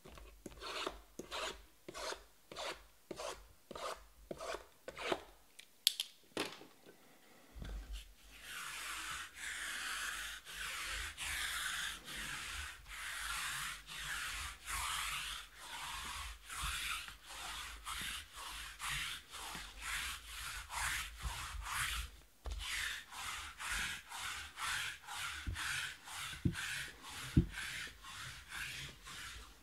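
Rhythmic rubbing strokes by hand, at about two a second. They start as separate strokes, then from about 8 s in turn into a louder, continuous back-and-forth rubbing, with one sharp click about 6 s in and a short pause about 22 s in.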